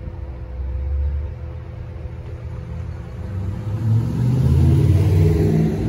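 A Dodge Challenger driving over the railroad crossing toward the listener, its engine rumble getting louder and rising in pitch as it accelerates in the last two seconds.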